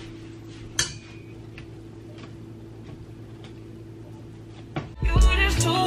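Faint, regular ticking, about two ticks a second, over a low steady hum, with one sharper click about a second in. About five seconds in, loud hip-hop music starts.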